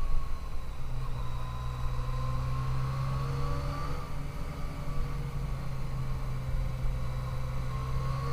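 Yamaha FJ-09's inline three-cylinder engine running at a steady cruise under wind rumble, its pitch starting to rise near the end as the bike accelerates.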